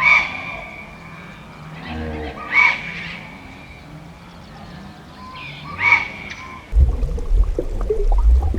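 Three short, high animal calls about three seconds apart, then a loud low rushing noise from near the end.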